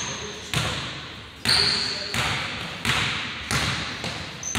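Basketball being dribbled on a hardwood gym floor, about one bounce a second, each bounce echoing in the large hall, with a few short sneaker squeaks.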